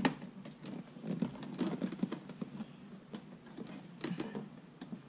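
Hands working a car's plastic interior trim, with scattered light clicks and taps and some rustling. A sharper click comes right at the start.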